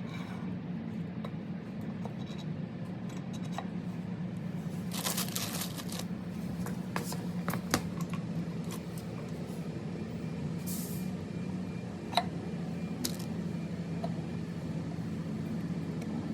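Hands working on a small engine: scattered light clicks and knocks of metal parts and tools, with a brief rustling, tearing burst about five seconds in, all over a steady low hum.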